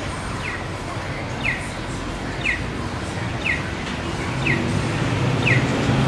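Audible pedestrian crossing signal at a street intersection, giving one short falling electronic chirp every second in a steady rhythm, over street traffic noise. A vehicle engine rumble builds near the end.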